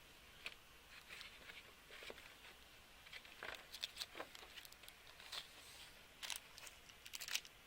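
Faint rustling and light clicks of bagged plastic model-kit parts being handled and unpacked, busier in the second half.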